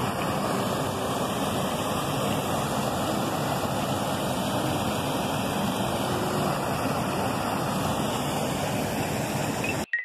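Waterfall's rushing water: a steady, even rush that cuts off suddenly near the end.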